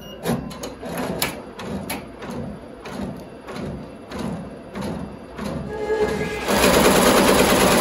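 Tajima multi-head embroidery machine stitching, with a regular clacking about twice a second. In the last second and a half a rising swell of noise builds up.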